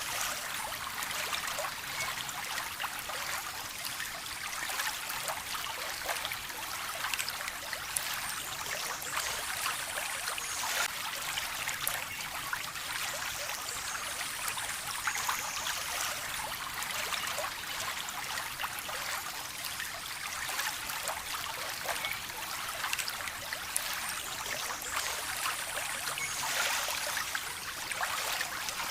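Running water in a small stream, trickling and splashing steadily with many small splashes.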